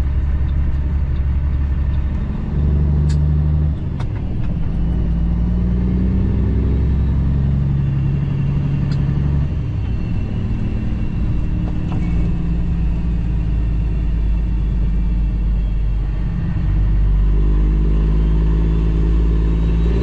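Cummins ISX diesel engine of a 2008 Kenworth W900L tractor, heard from inside the cab while driving. It runs steadily, and its pitch changes in steps several times.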